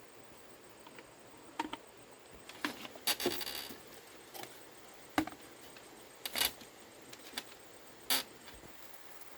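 Intermittent short rustles, snaps and clicks, a second or two apart, with one longer crackling rustle about three seconds in, over a faint steady hiss.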